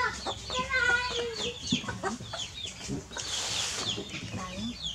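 Chickens clucking and peeping, many short high chirps with a longer held call in the first second or so. A brief rustling hiss a little past three seconds in.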